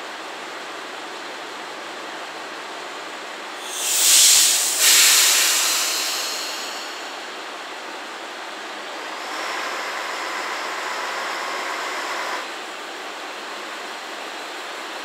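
JR Shikoku 1000 series diesel railcar at a platform: a loud hiss of compressed air about four seconds in, in two quick bursts that fade over a couple of seconds, then the diesel engine runs up under power for about three seconds as the car starts to pull away.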